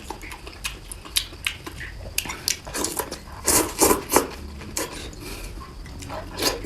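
Close-up eating sounds: chewing and slurping of noodle soup and fish cake, with utensils clicking against the bowl. The loudest bursts come about three and a half to four seconds in.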